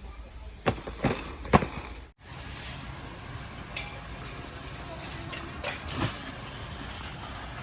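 A few sharp knocks and clinks over steady background noise, with a brief dropout just after two seconds.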